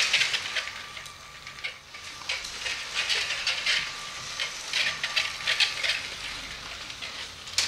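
Lego City cargo train on its plastic track: a string of irregular light plastic clicks and rattles, with a faint steady whine at two points.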